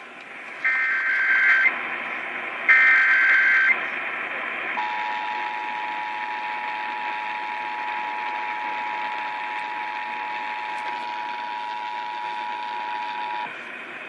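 Emergency Alert System activation heard over a radio broadcast with background hiss: two one-second bursts of the SAME digital header data, a second apart, then the two-tone EAS attention signal held steady for about nine seconds before it cuts off near the end.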